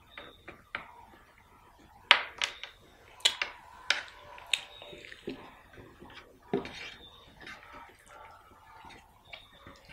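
Wet eating sounds from hand-eating mutton curry and rice: mouth smacks and chewing clicks, and fingers squishing and mixing rice and curry on a plate. It comes as a string of sharp wet clicks, thickest and loudest from about two to five seconds in.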